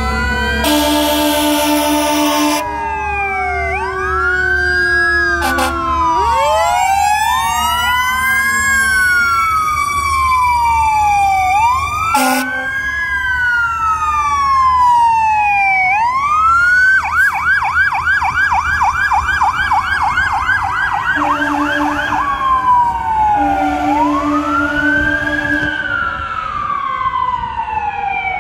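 Fire truck sirens wailing, several at once, rising and falling out of step with one another, with a fast yelp from about 17 to 21 seconds in. Short, steady-pitched horn blasts sound at intervals among the sirens.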